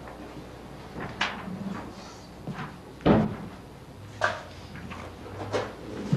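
A few scattered knocks and thumps in a meeting room, four in all, spaced a second or two apart, the loudest and deepest about three seconds in.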